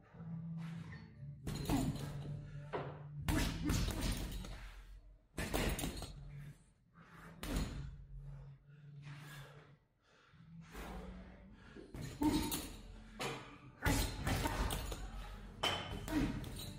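Boxing gloves thudding into a Fairtex heavy bag in irregular flurries of punches, with short pauses between combinations.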